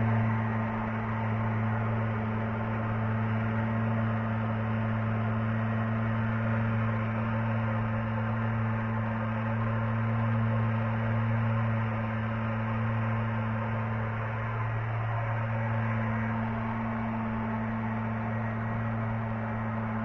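A steady low hum with an even hiss over it, unchanging throughout.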